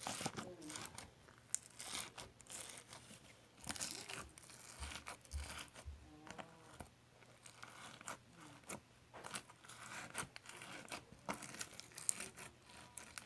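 Crinkling and tearing of packaging material, with many irregular short crackles as it is handled.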